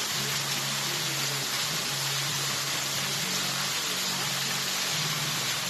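Steady rushing of spring water flowing and splashing, an even hiss with no breaks.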